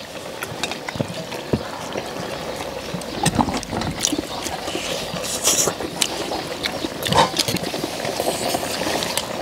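People eating pork backbone stew: slurping broth and chewing, with scattered clicks of spoons and chopsticks against stainless steel bowls.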